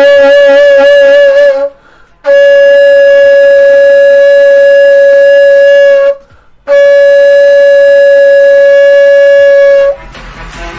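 Ney, the Turkish end-blown reed flute, playing the do note (çargah): three long held tones separated by two short breaths, the first with a wavering vibrato, the others steady. About ten seconds in the ney stops and quieter background music begins.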